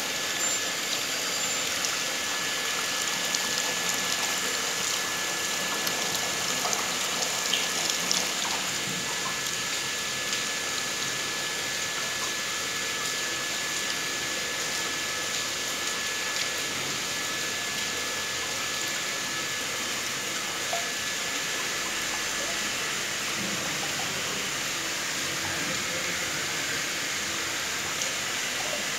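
Water rushing steadily through a water filter system during backwash, with a thin steady whine that fades near the end.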